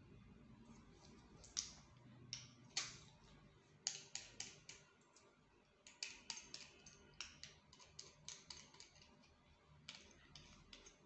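Irregular light clicks and taps of metal parts as a fondant extruder is handled and assembled, some single and some in quick runs of several.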